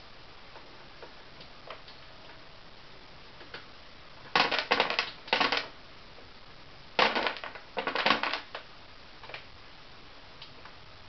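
Dry cat kibble dropping from an automatic cat feeder and clattering onto the floor in two rattling bursts a couple of seconds apart, each a little over a second long.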